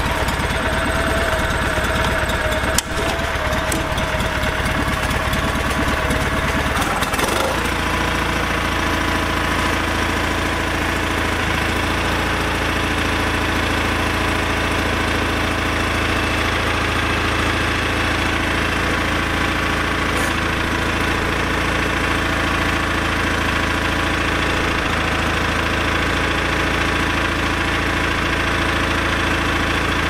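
John Deere 318 garden tractor's two-cylinder Onan engine running steadily. There is a sharp click about three seconds in, and the engine's note changes about seven seconds in.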